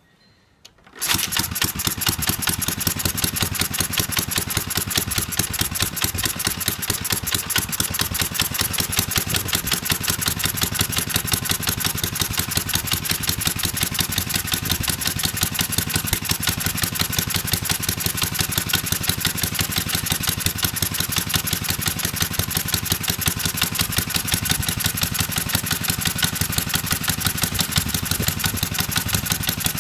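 Antique Briggs & Stratton Model Y single-cylinder engine on a homebuilt motorcycle catching about a second in, then running steadily at an even, rapid beat of firing strokes.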